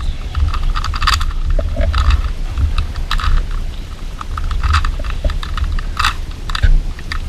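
A 3x3 Rubik's cube being turned by hand through an algorithm: a fast, irregular run of plastic clicks and scrapes as the layers rotate, over a low rumble.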